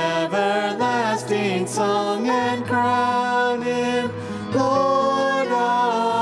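Vocal trio of two women and a man singing a hymn in harmony into microphones, with long held notes.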